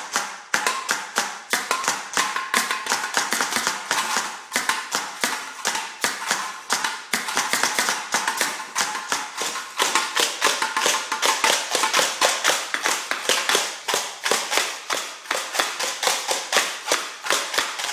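Improvised kitchen percussion: a wooden stick beating on a metal pot, with a glass jar played alongside, in a fast, steady run of taps.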